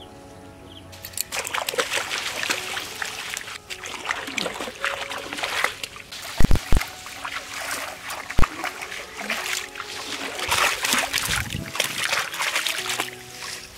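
Water splashing and sloshing as a freshly dug elephant foot yam (ol) is washed by hand, starting about a second in and stopping just before the end, with three dull thumps in the middle.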